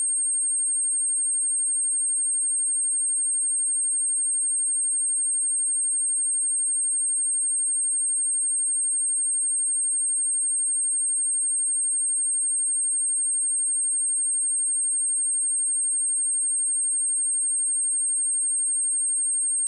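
A pure 8544 Hz sine-wave test tone: one steady, high-pitched whistle that does not change in pitch or loudness.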